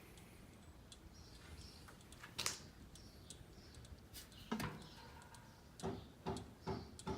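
Vintage GE 5-wing box fan coasting down after being switched off, a faint low hum with irregular light clicks and knocks that come more often after about four and a half seconds: a loose C-clip on the fan rattling.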